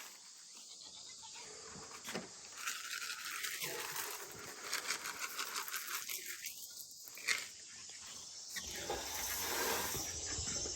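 Faint outdoor background with insects and scattered light clicks and rustles.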